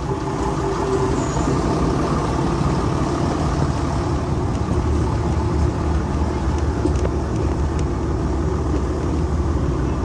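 Heritage passenger train in motion, heard from on board: a steady rumble of the carriage wheels running on the rails, with a few faint ticks late on.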